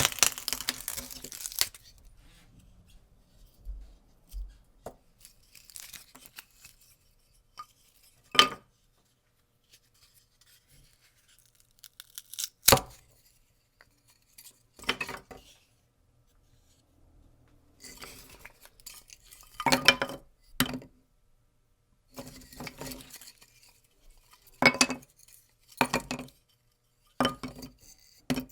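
Pieces of wood, twigs and sticks being snapped by hand: a string of separate sharp cracks and splintering crackles with quiet pauses between them, coming thicker in the second half.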